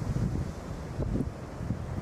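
Gusty storm wind buffeting the microphone: a low, uneven rumble that swells and drops with each gust.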